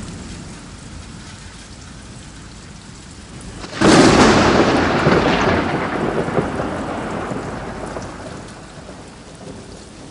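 Thunderstorm: steady rain, with a roll of thunder fading away at first, then a sudden loud thunderclap just under four seconds in that rumbles off over the following seconds.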